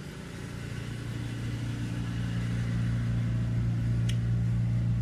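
A motor or engine running at a steady low pitch, growing gradually louder, with one sharp click about four seconds in.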